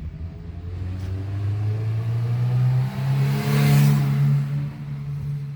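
Honda Odyssey engine being cranked with the key, its hum rising in pitch and swelling louder about three and a half seconds in. The mechanic blames the van's no-start and stalling fault on a defective crankshaft position sensor.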